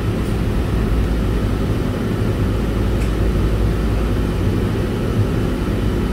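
Steady low rumble of a resort tram, heard from on board, with no distinct events.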